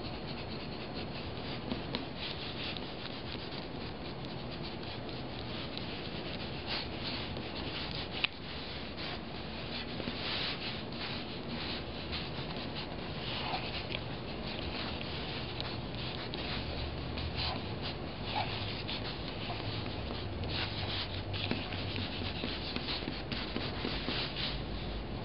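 Two pens scratching across drawing paper at once, in quick uneven bursts of strokes with short pauses between them; one sharp click of a pen on the paper about a third of the way through.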